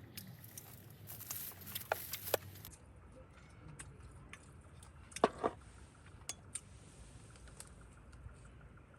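A few light clicks and knocks of small objects being handled, the loudest pair about five seconds in, over a low steady background rumble.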